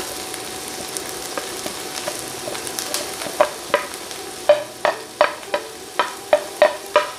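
Diced onions sizzling steadily in olive oil in a pan. From about halfway in, a cooking utensil stirs them and knocks against the pan in a run of sharp taps, roughly three a second.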